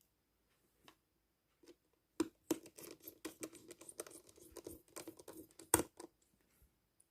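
A small screwdriver driving the mounting screws into the metal brackets of a ThinkPad T420 laptop screen: a quiet run of scratchy clicks and scraping that starts about two seconds in and stops about six seconds in, with one sharper click near the end.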